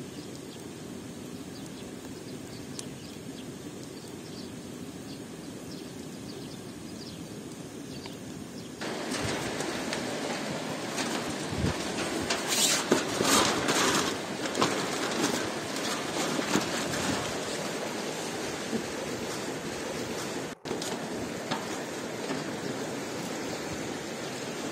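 A steady rushing hiss, then aluminium foil crinkling and rustling as a sheet is handled and spread out, loudest about halfway through.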